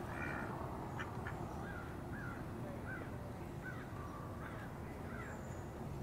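Mallard ducks quacking: a run of about six short quacks, spaced under a second apart, starting about one and a half seconds in.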